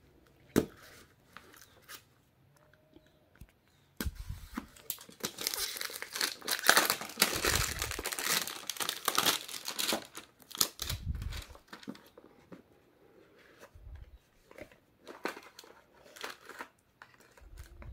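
Clear plastic wrapping crinkling and tearing as it is pulled off a phone box, dense from about four seconds in to about ten, then in scattered bits with light knocks of cardboard boxes being handled. A single sharp click comes just after the start.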